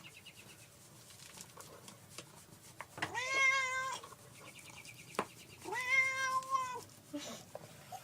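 Domestic cat meowing twice, two drawn-out meows of about a second each, a couple of seconds apart.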